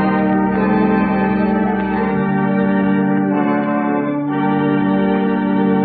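Organ music playing held chords, shifting to a new chord about two seconds in and again a little after four seconds.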